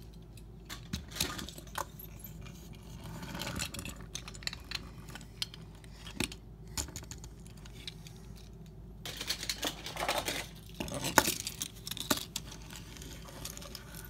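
Toy cars clattering and knocking against each other and a hard surface: scattered small clicks and rattles, busiest near the end, with one sharp knock among them.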